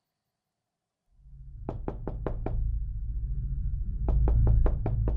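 Two quick runs of knocking, five knocks and then six, over a low rumbling drone that fades in about a second in.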